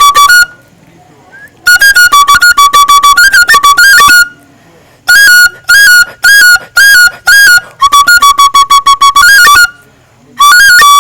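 A shrill, loud wind instrument of the flute or whistle kind, played in quick tongued phrases that jump between a lower and a higher note. Brief pauses fall between phrases, and near the end it holds the lower note for about two seconds.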